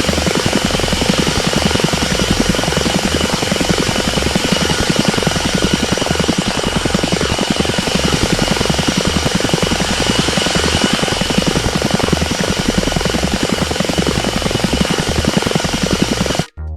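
Helicopter hovering sound: a steady, fast rotor chop under a high, even turbine whine. It drops out for a moment near the end.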